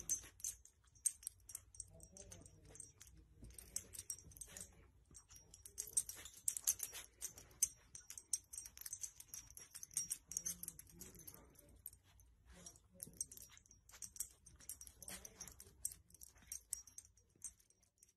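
Faint, irregular rustling and small clicks of a dog nosing and pushing a fleece blanket over a sleeping baby.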